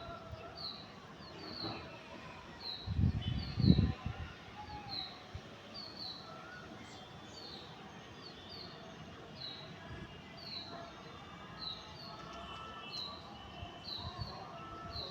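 Birds chirping: a steady series of short, high chirps about two a second, with other calls behind them over a steady outdoor background. A brief low rumble about three seconds in is the loudest moment.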